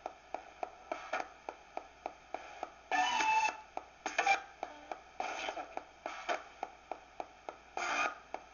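Direct Linc ghost box radio sweeping the radio band: a steady run of clicks about three a second as it hops from station to station, with short snatches of broadcast sound and static in between. The longest snatch comes about three seconds in.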